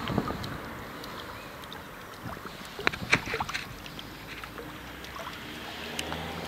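Flowing stream water splashing as the curved metal paddles of a homemade water turbine turn through it, with a cluster of louder splashes about three seconds in.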